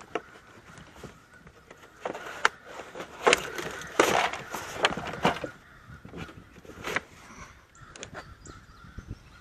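Irregular sharp knocks and clatter on the kayak, loudest around the middle, with crows cawing in the distance.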